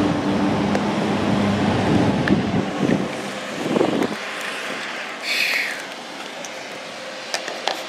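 Lawnmower engine running with a steady low hum that drops away about four seconds in. Then the scrape and rustle of the camera being handled, with a short hiss about five seconds in and a few light clicks.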